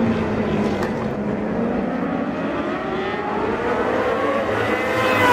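World Superbike racing motorcycles' engines running at high revs on the circuit. The pitch climbs and the sound grows louder over the last couple of seconds as bikes accelerate and come closer.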